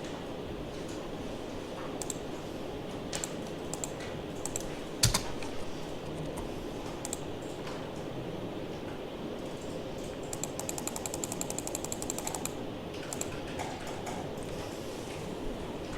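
Computer keyboard keys clicking: scattered single keystrokes, one louder click about five seconds in, and a quick run of typing near the middle to two-thirds mark, over a steady low background hum.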